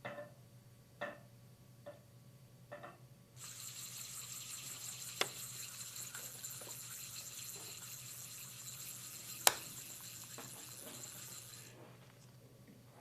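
A few light taps, then a steady hiss like running water for about eight seconds, with two sharp clicks during it, the second the loudest. Likely a live foley sound effect.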